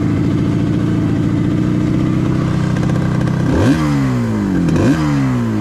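Yamaha RD350's two-stroke parallel-twin engine idling, then revved twice, at about three and a half and five seconds in, each rev rising sharply and falling back to idle.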